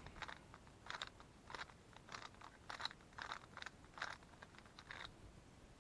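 Moyu Weilong GTS3 M magnetic 3x3 speedcube being turned by hand: faint, quick clicking turns in short spurts, roughly two a second.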